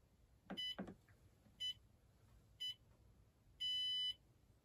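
Sole F63 treadmill console beeper sounding its start sequence after the Start key is pressed, with a soft knock or two from the key press. Three short high-pitched beeps about a second apart are followed by one longer beep, showing the newly fitted display board is powered and responding.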